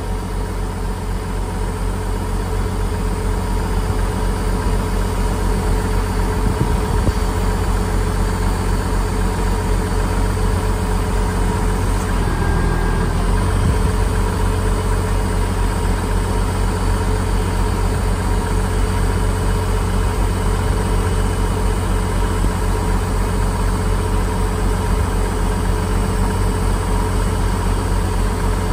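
International 856 tractor engine idling steadily, with a brief change in its note about twelve seconds in.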